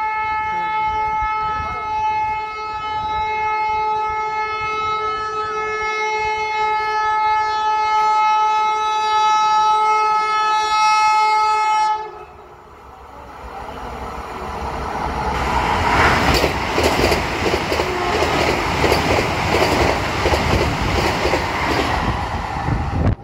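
Vande Bharat Express electric trainset sounding one long steady horn for about twelve seconds as it approaches, which cuts off suddenly. The rush and rumble then build as the train passes close at about 126 km/h, with wheel clatter, loudest over the last seven seconds.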